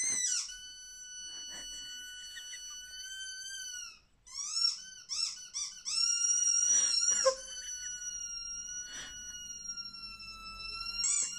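A high, clear whistle-like sound: long steady notes, the last one sinking slightly, broken about four seconds in by a quick run of short rising-and-falling chirps.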